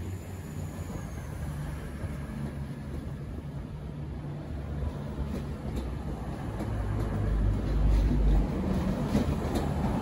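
V/Line VLocity diesel multiple unit running past and pulling away, a steady low rumble of its underfloor diesel engines and wheels on the track. It grows louder in the second half, with sharp wheel clicks over rail joints.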